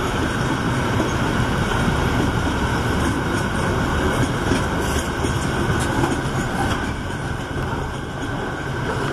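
Intermodal container wagons of a freight train rolling past on the near track: a steady rumble of wheels on rail, with light clicks now and then.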